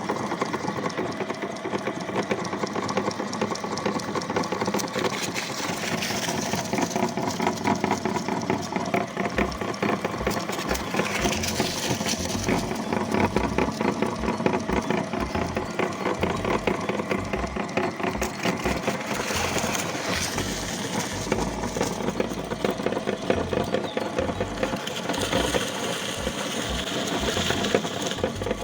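Electric meat grinder running steadily while it grinds corn sticks, its motor hum mixed with a continuous fine crackle of the sticks being crushed.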